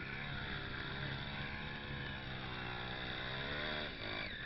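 Off-road motorcycle engine running, its pitch rising and falling gently.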